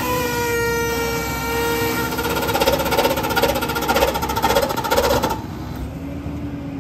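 McNeilus rear-load garbage truck cycling its hydraulic packer through a hopper of brush, the engine running high with a pitched hydraulic whine. A rapid pulsing comes in about halfway, and the sound drops suddenly to a quieter idle near the end.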